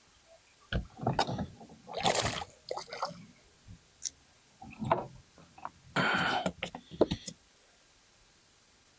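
Thumps, knocks and splashy rustling as a small bass is brought aboard a fishing boat and handled, with a few sharp knocks on the boat; quiet for the last second or so.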